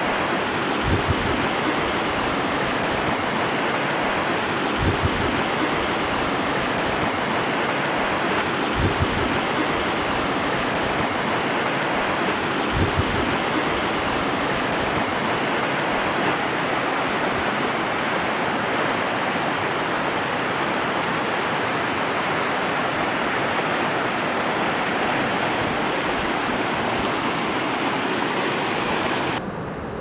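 River rapids rushing over a shallow rocky bed: a steady, loud rush of water, with a few soft low thumps in the first half. Near the end it drops to a quieter, duller rush.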